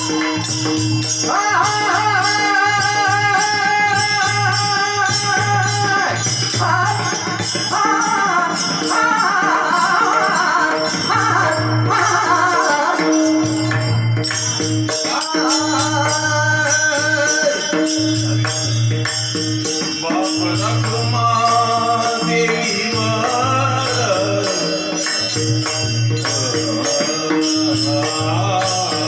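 Marathi devotional bhajan music: long, wavering sung notes over a steady drone, with a regular drum beat and jingling hand percussion.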